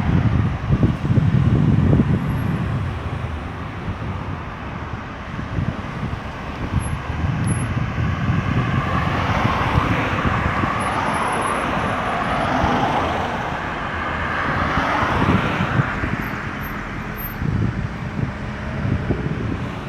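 Highway traffic going by: a steady low rumble of cars and trucks with tyre noise, swelling louder for several seconds in the middle as vehicles pass close.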